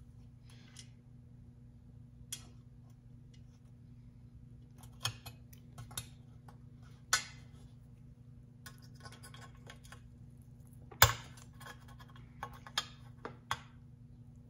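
Irregular small metal clicks and clinks as fasteners are pushed onto and fiddled with on a metal trim piece, with one sharper clack about 11 seconds in. A steady low hum runs underneath.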